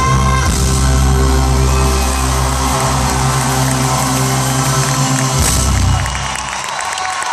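Live band holding a closing chord, heard from the audience with the crowd cheering over it. The band cuts off about six seconds in, and cheering and applause carry on.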